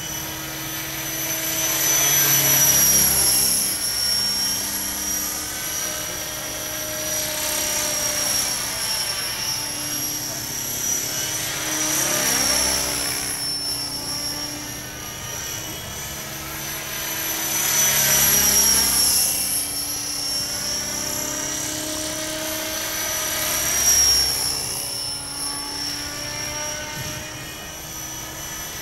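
A 600-class radio-controlled model helicopter flies overhead, its rotor and drivetrain giving a steady high whine. The sound swells and fades with the pitch bending as it makes passes, loudest about three seconds in and again around eighteen seconds in, with a brief peak near twenty-four seconds.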